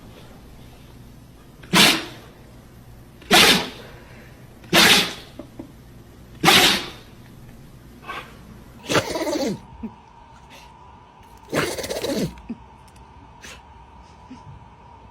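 A pet sneezing in a run of sharp, short bursts, four of them about a second and a half apart. Two longer sneezes follow, each with a falling pitched note in it. A faint steady tone runs through the second half.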